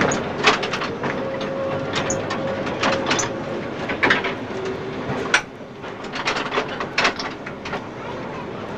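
Heritage electric tram running along street track, heard from the driver's platform: a steady rumble with a held tone for a couple of seconds and a scatter of sharp clicks and knocks from the running gear.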